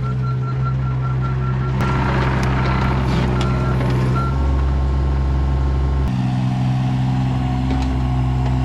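John Deere 17G mini excavator's diesel engine running steadily while its travel alarm beeps repeatedly, with some clatter of the machine working. The beeping stops about four seconds in, and the engine note shifts about two seconds later.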